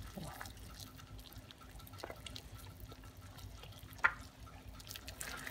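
Quiet bubbling of water at the boil in a stainless steel stockpot, with a few short drips, the loudest about four seconds in.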